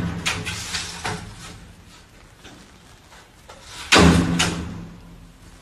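Sliding glass window thumping and rattling in its frame as a cat bats and pushes at the pane with its paws. There are a few light knocks in the first second, then two loud bangs about four seconds in, each leaving a low ringing hum.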